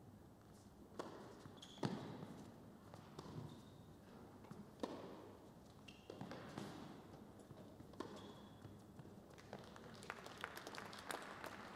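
Tennis rally on an indoor hard court: ball struck by racquets several times, each hit echoing in the hall, with brief shoe squeaks between shots. A scattering of claps starts near the end as the point finishes.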